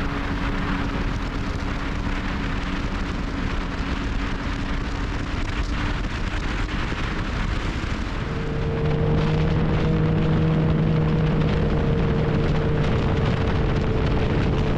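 Ski-Doo Expedition Xtreme snowmobile running steadily along a trail at speed, its engine note mixed with track and wind noise. About halfway through, the engine note changes and gets louder.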